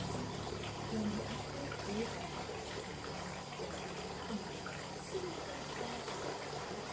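Steady low background hum and hiss, with faint short chirps scattered through.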